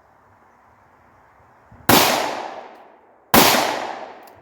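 Two 9mm pistol shots from a Glock 43, about a second and a half apart, the first about two seconds in; each shot trails off in a long echo.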